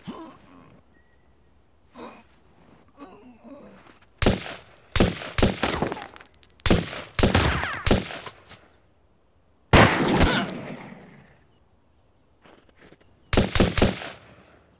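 Pistol gunfire: a rapid run of a dozen or so shots, then one very loud shot that echoes away, and a short burst of two or three more shots near the end.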